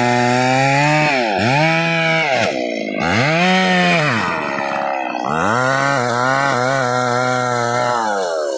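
Stihl MS 381 two-stroke chainsaw cutting hard trembesi (rain tree) wood. Its engine speed sags several times and recovers as it bogs under the load, then drops away near the end.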